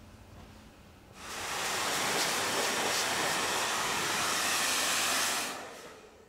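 Hand-held hair dryer blowing onto the hair: a steady rush of air that comes up about a second in, runs for about four seconds, then winds down.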